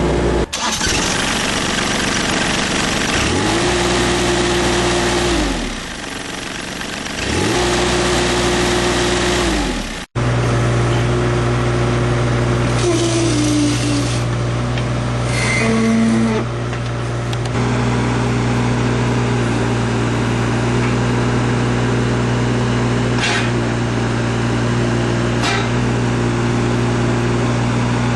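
Diesel engine of a 2005 JCB 8017 mini excavator running, revving up and settling back down twice. After a cut about ten seconds in, it runs steadily, with brief changes in pitch and a couple of clicks later on.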